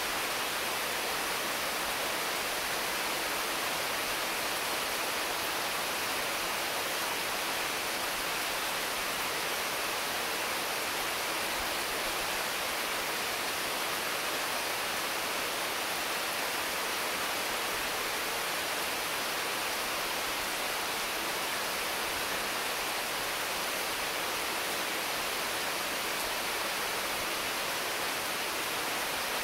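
Intense rain falling steadily on mango, papaya and other trees, an even, constant hiss with no separate drops or gusts standing out.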